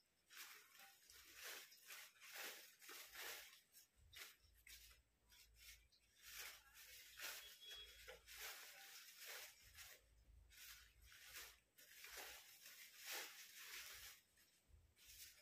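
Faint, irregular rustling and crinkling of thin white paper as it is unfolded and fluffed out by hand.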